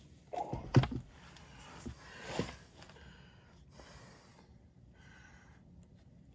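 A few loud knocks and clatter of handling in the first second, with a person's sharp breaths and effortful exhales; then only faint short breaths.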